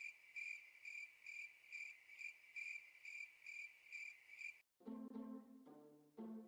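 Cricket-chirp sound effect: a high, even chirp repeating about twice a second, cutting off suddenly about four and a half seconds in. Background music with a stepping melody then begins.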